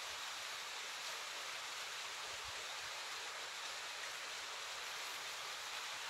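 Thin waterfall: a steady, even rush of falling water.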